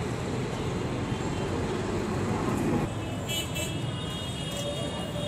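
Busy street traffic noise, with a horn tooting briefly about three seconds in.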